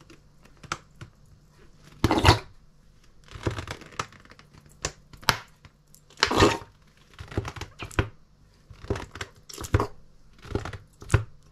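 Fuel paste being dispensed from its container into the table smoker's burner cans: about a dozen short, irregularly spaced handling and squeezing noises, the loudest about two seconds in and again just after six seconds.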